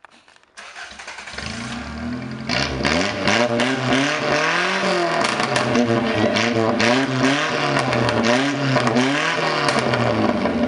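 Toyota AE86 Corolla engine revved up and down repeatedly, about five times, the pitch climbing and dropping with each blip. The engine sounds "not too bad".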